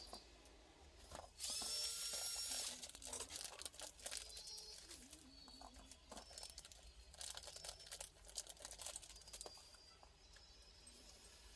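Workshop handling noises from work on a demolition breaker: a brief high-pitched whirring hiss about a second and a half in, then scattered clicks and knocks of parts.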